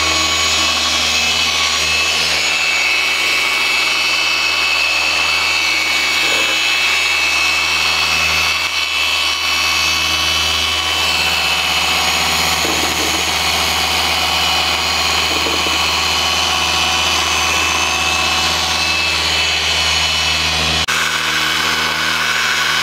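Electric car polisher running steadily with a foam pad pressed on the paint, a constant motor whine as it buffs oxidized single-stage paint with compound.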